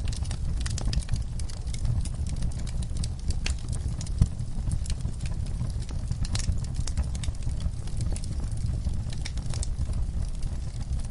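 Campfire crackling: irregular sharp snaps and pops over a steady low rumble of the flames, with one louder pop about four seconds in.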